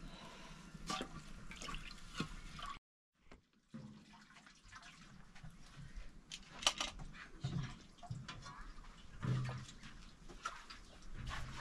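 Water splashing and sloshing in a metal pot, broken by a short gap about three seconds in, with scattered clinks including one sharp clink later on.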